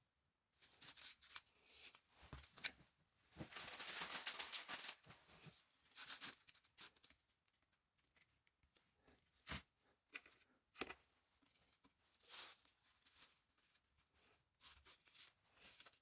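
Faint handling sounds of a foam rubber gasket strip being laid along a wooden panel: scattered rustles, a longer rustle from about three and a half to five seconds in, and a couple of sharp taps later on.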